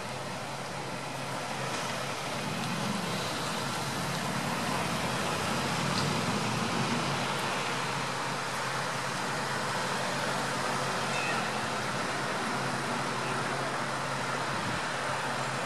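Steady street traffic noise with the low hum of idling vehicle engines.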